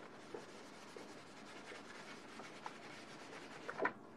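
Faint scratchy rubbing of a paintbrush being worked over canvas, with a few light ticks and a short, louder scrape or knock near the end.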